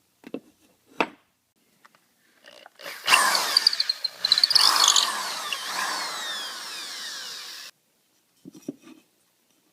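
Electric drill boring a hole through a wooden two-by-four: a couple of knocks, then the drill runs for about four and a half seconds with its pitch shifting, and stops abruptly.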